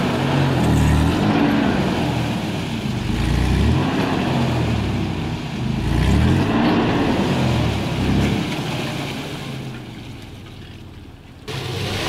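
SUV engines revving up and down over and over under heavy load during a strap recovery: a Toyota Land Cruiser Prado pulling a stuck Mitsubishi Pajero Sport out of a rut. The revving eases off near the end.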